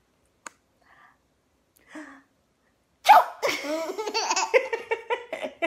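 A mock sneeze ("achú") about three seconds in, then a seven-month-old baby laughing hard in repeated bursts.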